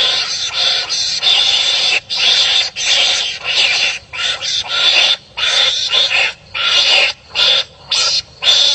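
Wild animals calling at each other in a fast run of harsh, raspy barks and screeches, about one to two a second with short gaps between them.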